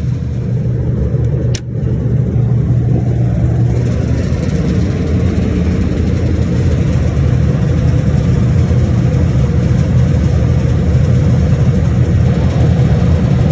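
Refrigeration unit switched on: a sharp click about a second and a half in, then a steady low machine hum.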